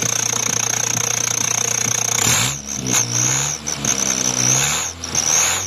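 Subaru Justy engine idling with a fake turbo whistle giving a steady high-pitched whistle. About two seconds in, the engine is blipped several times, and the whistle wavers and dips with each rev. The sound cuts off abruptly near the end.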